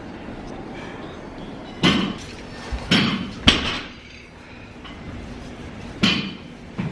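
Gym noise: several sharp clanks and knocks of weights and equipment, a second or more apart, the loudest about halfway through, over a steady background hum.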